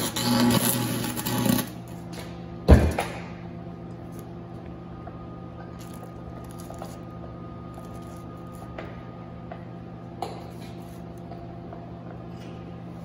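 MIG welder crackling and sizzling for about a second and a half as it welds inside a steel brake drum. About a second later comes one loud, ringing metal clank, followed by a few light clinks of steel being handled. A steady low hum runs underneath.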